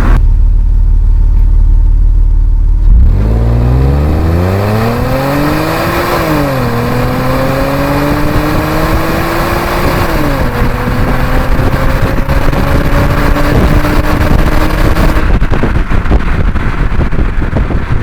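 2007 Audi A6 3.2-litre FSI V6 held at a steady low note, then accelerating hard from a standstill about three seconds in: the revs climb, drop sharply at two upshifts of the six-speed Tiptronic gearbox, and climb again. About fifteen seconds in the engine note falls away, leaving road and wind noise.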